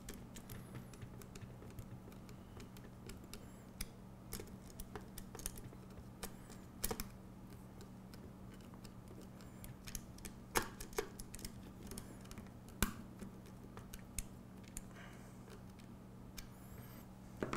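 Scattered light clicks and taps of small fastener hardware as a screw and nut are worked and tightened to fix a bracket onto aluminium extrusion, with a few sharper clicks standing out. A faint steady low hum runs underneath.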